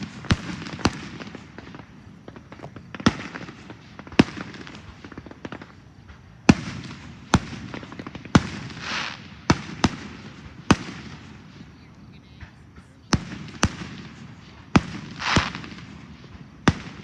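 Aerial fireworks going off: about fifteen sharp bangs at irregular intervals, with two longer hissing swells, one near the middle and one about three quarters of the way in.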